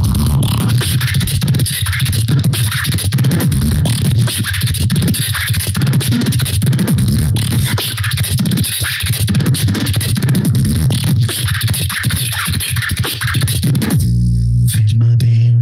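Solo beatboxing into a handheld microphone: a dense, fast run of vocal percussion clicks and snares over a heavy bass line. About fourteen seconds in the sharp sounds stop and a single low bass note is held.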